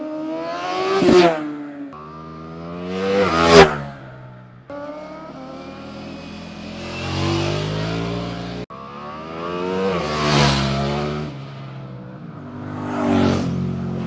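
Sport motorcycles passing close by one after another, about five passes joined by abrupt cuts. On each pass the engine rises in pitch as the rider accelerates, swells to a peak as the bike goes by, then fades. The loudest pass is a little after three seconds in.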